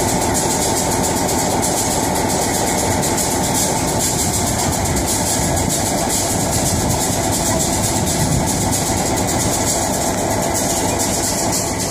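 Railway turntable rotating with a diesel locomotive aboard, giving a steady, even mechanical rumble.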